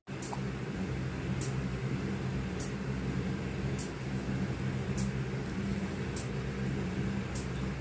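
A small motor hums steadily and low, with a faint tick about once a second.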